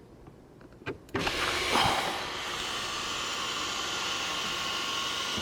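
A couple of clicks, then the electric motor of a soft-touch sunroof in a Chevy Tahoe starts about a second in and runs steadily as the sunroof panel moves.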